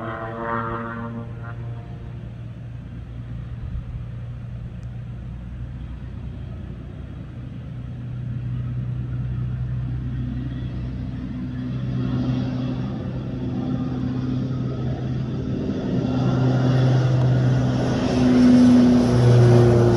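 Twin-engine turboprop's engines running with a steady low drone, growing louder through the second half as the plane powers up on the runway.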